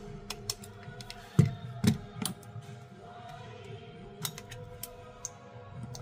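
Small clicks and knocks of a smartphone and a metal-handled precision screwdriver being handled and set down on a silicone repair mat, the loudest two about 1.5 and 2 seconds in, over quiet background music.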